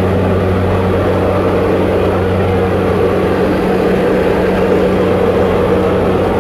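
Aircraft engine and propeller drone heard inside a jump plane's cabin: a loud, steady low hum with a constant note and its overtone, unchanging throughout.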